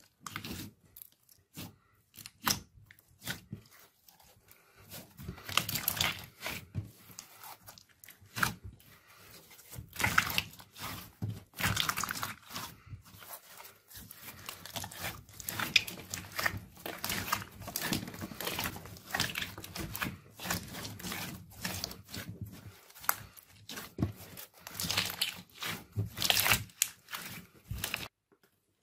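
Hands squeezing and kneading clear glossy slime: sticky squishing and crackling in irregular clusters, with short pauses between squeezes.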